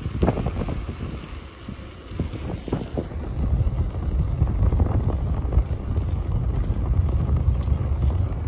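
Wind buffeting the microphone of a camera on a moving electric bike: a steady low rumble that grows louder from about three seconds in, with a few short knocks in the first three seconds.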